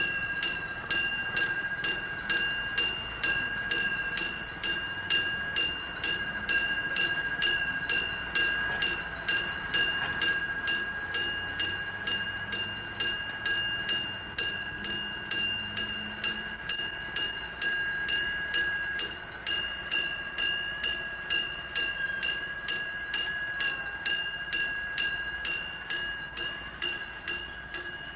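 Railroad crossing bell ringing over and over at an even pace, about two to three strikes a second, each strike a bright ringing tone at the same pitch.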